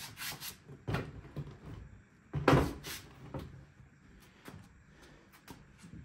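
Knocks and rubbing from handling the plastic tub of removed trunk parts on the scale. The loudest is a longer scraping knock about two and a half seconds in, followed by a few fainter knocks.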